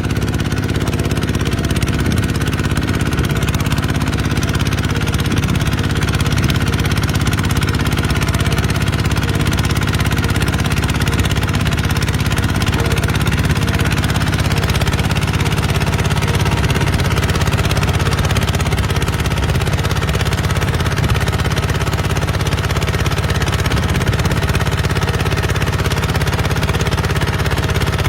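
Kubota RT140 two-wheel tractor's single-cylinder diesel engine running steadily while it works the ground.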